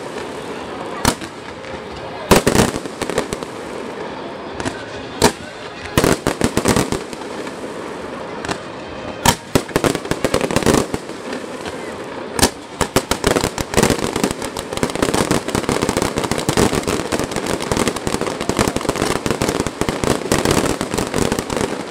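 Fireworks show: aerial shells bursting with sharp bangs at irregular intervals, then, from about halfway through, a dense, unbroken run of rapid crackling reports.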